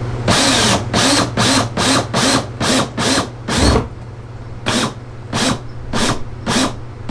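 Power drill drilling holes for the seat mounting. The motor runs steadily, with about a dozen short, louder bursts as the bit bites. The bursts come close together at first and are more spaced out after about four seconds.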